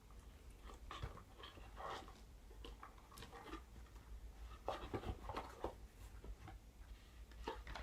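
Faint rustling and light taps of paper and photocards being handled, in scattered short clicks with a small cluster about five seconds in.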